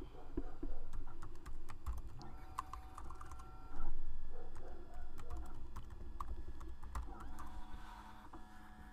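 Typing on a computer keyboard: irregular key clicks while a password is entered, with one louder knock about four seconds in.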